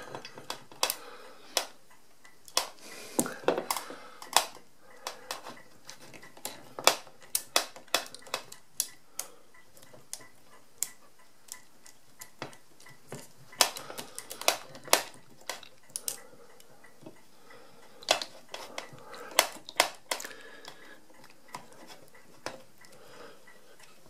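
Irregular light metallic clicks and ticks from the resetting crank and its bushing on an Original-Odhner 239 pinwheel calculator's result register, jiggled by hand while being fed back into place, with brief clusters of quicker clicks about halfway through and again near the end.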